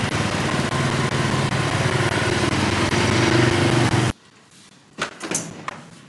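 Motor scooter engine running as the scooter rides off, steady with a rushing hiss over it. It cuts off abruptly about four seconds in, followed by near quiet with a couple of sharp clicks.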